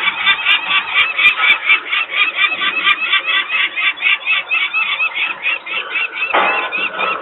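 Adult peregrine falcon giving its harsh alarm cacking, a rapid unbroken run of calls at about six or seven a second: an alarm at disturbance near the nest. A brief rush of noise joins the calls near the end.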